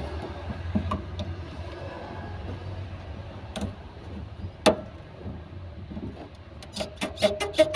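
Pliers clicking and tapping against the hose clamps and fittings on top of a car's in-tank fuel pump module, with one sharp metallic click past the middle; near the end a fast run of scraping strokes, about six a second, over a steady low hum.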